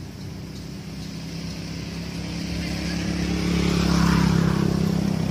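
Engine of a motor vehicle running steadily, growing louder to a peak about four seconds in, as if passing close by.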